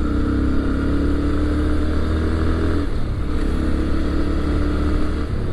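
Motorcycle engine running as the bike cruises, heard from the rider's seat over a steady rush of wind and road noise; about three seconds in the engine note breaks and shifts pitch, as the throttle changes.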